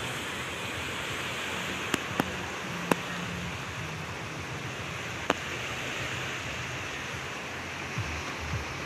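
Small sea waves breaking and washing up a beach, a steady surf hiss, with a few sharp clicks in the first half and some low rumbles near the end.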